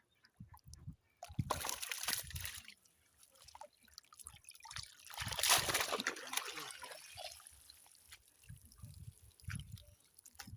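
Water splashing and sloshing twice, with a short burst and then a louder, longer one a few seconds later.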